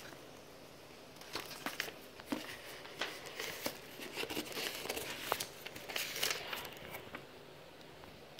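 Printed paper sheets and cardboard box flaps rustling and crinkling as they are handled, in irregular short crackles that start about a second in and die down near the end.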